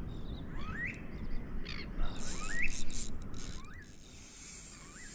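Fishing reel clicking and hissing while a hooked fish is fought on light tackle, the clicks bunched together about halfway through. A bird repeats a short rising call about once a second.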